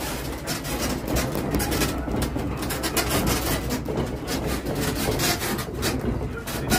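A room shaking in a strong earthquake: a steady low rumble with dense, rapid rattling and creaking of the building and its furnishings.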